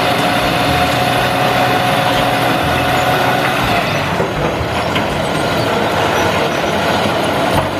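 Dump truck's engine running steadily as the hydraulic hoist tips the loaded bed and the soil slides out, with a steady whine over it that stops about three and a half seconds in.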